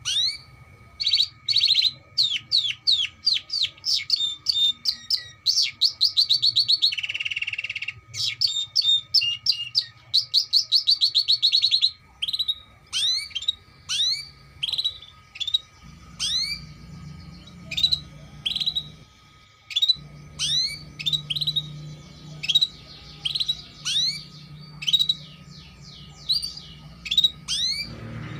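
Domestic canary singing: fast repeated trills of chirps, with a short buzzy roll about seven seconds in, then slower, separate rising chirps from about twelve seconds in.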